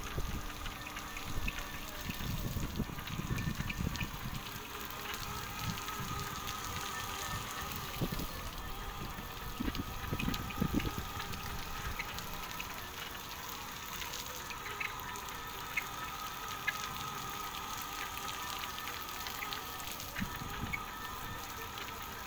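Water spraying and trickling over solar-panel glass from a wet solar-panel cleaning robot, with a steady faint whine and a few low bumps.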